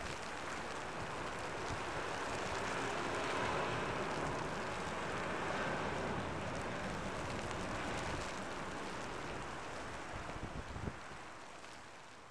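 Steady road traffic noise, a haze of tyres and engines, easing down over the last couple of seconds.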